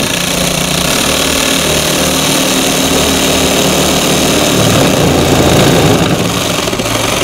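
Craftsman 20V cordless jigsaw running at full speed as its blade is plunged into a fibreboard (MDF) panel, a steady loud machine buzz with the blade chattering through the board. It stops abruptly at the very end.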